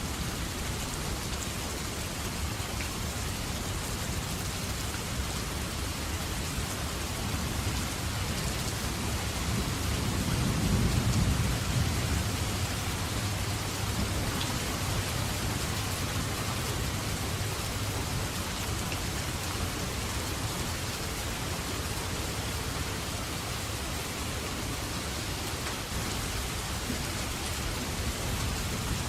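Steady rain falling, with a low rumble of thunder swelling about ten seconds in and fading a couple of seconds later.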